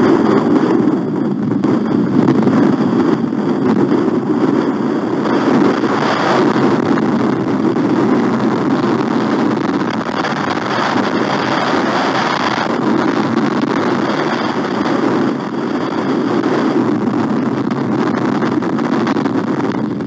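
Strong wind blowing across an outdoor nest-camera microphone: a steady, loud rushing noise that swells and eases a little.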